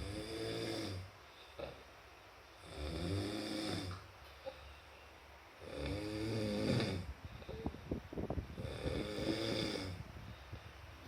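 A person snoring heavily in a steady rhythm: four long snores about three seconds apart, each lasting a little over a second, with quieter breathing in between.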